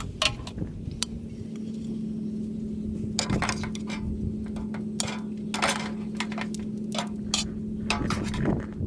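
Dishes and cooking utensils clinking and knocking as food is handled and plated, a dozen or so separate sharp clicks, over a steady low hum that comes in about a second in.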